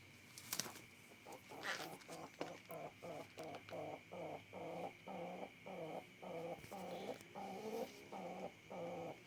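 Domestic pigeon cooing, a low call repeated steadily about twice a second, with a sharp click about half a second in.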